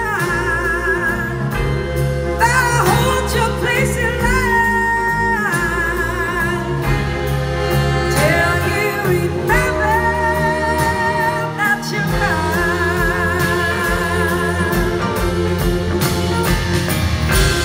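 Live band playing: a woman singing over electric guitar and drums, with long held notes that waver and glide into pitch.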